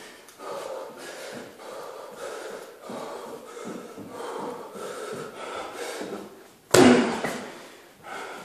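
A man breathing hard from the exertion of sparring, with short forceful breaths every half second to a second. A single loud thump about seven seconds in is the loudest sound.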